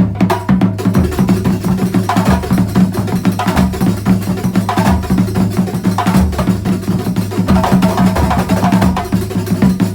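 Terbang frame-drum ensemble playing a fast, dense percussion rhythm over a steady low tone.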